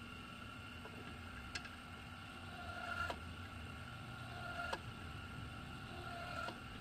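Alloy wheel straightening machine running with a steady hum, a light click coming about every second and a half, the later clicks each just after a faint brief squeal.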